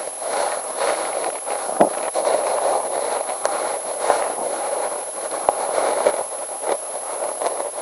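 Experimental soundscape: a dense crackling noise with scattered sharp clicks under a steady, very high-pitched whine.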